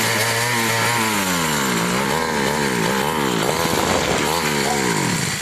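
Brush cutter engine running with its re-ground blade, holding a steady speed for about a second and then repeatedly dropping in speed and picking up again, roughly every two-thirds of a second.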